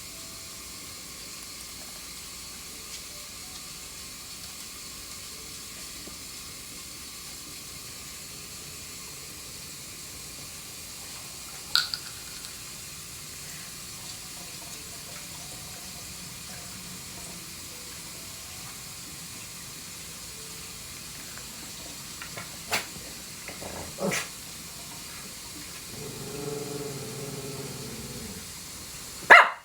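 Tap water running steadily into a sink, with a few sharp clicks or knocks now and then, the loudest just before the end. A short pitched sound lasts about two seconds shortly before that.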